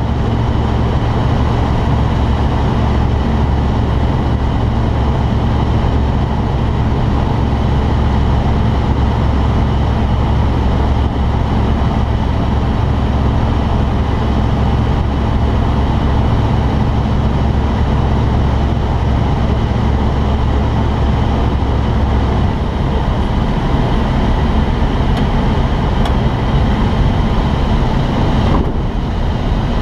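Light aircraft's piston engine running steadily, heard inside the cockpit over the rush of air. About 22 seconds in the low engine drone falls away as the engine is shut off in flight for a power-off landing, leaving mostly airflow noise.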